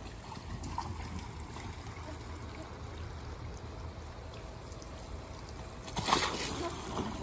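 Water trickling steadily on a backyard slip and slide fed by a garden hose, with a louder wet splashing swoosh about six seconds in as a child lands and slides on the wet plastic, and a smaller one just after.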